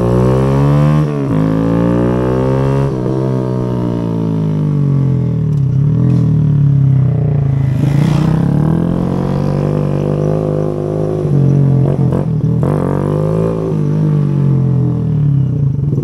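Kawasaki Z125 Pro's single-cylinder engine through its new aftermarket exhaust, revving up and dropping back sharply at each gear change as it pulls away. It then eases off and picks up again several times as the bike rides along.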